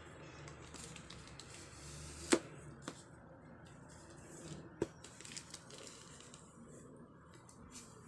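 Plastic courier mailer rustling and crinkling as hands handle and turn it over, with a few sharp knocks, the loudest right at the end.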